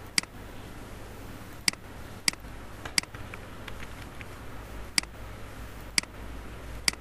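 Computer mouse button clicks: about seven sharp single clicks, irregularly spaced, over a faint low hum.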